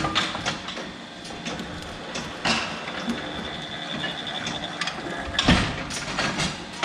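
Irregular mechanical clicking and clattering, with a louder knock about five and a half seconds in.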